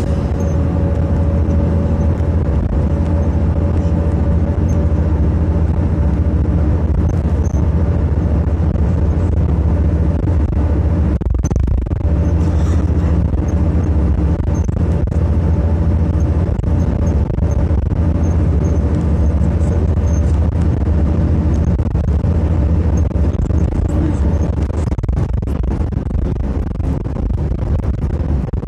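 City bus driving at a steady speed, heard from inside the passenger cabin: a continuous low engine hum with a faint steady whine over tyre and road noise.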